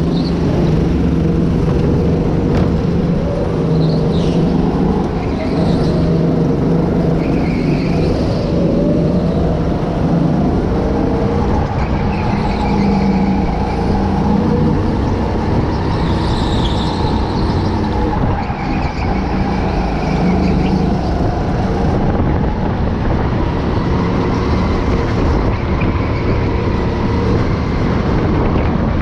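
Go-kart engine running hard on board as the kart laps the track, its note dipping and climbing through the corners, with other karts' engines close by.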